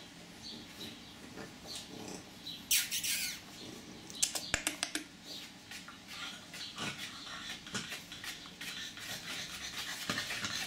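Chow Chow puppies' claws clicking and pattering on a tiled floor as they walk about. There is a short scuffle about three seconds in and a quick run of clicks about four seconds in.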